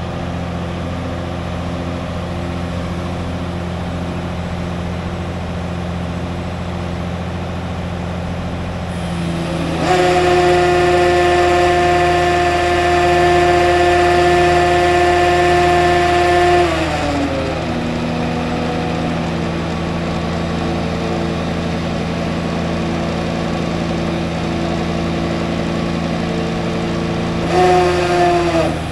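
A 6x6 military wrecker's engine running steadily. About ten seconds in its speed is raised and held for some seven seconds, then falls back; there is a second short rise and dip near the end. The raised engine speed works the crane winch, reeling in the newly replaced cable and lifting the hook.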